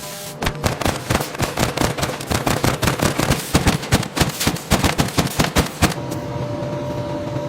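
A rapid, irregular crackle of sharp clicks and bangs lasting about six seconds, then a steady mechanical hum with a held tone.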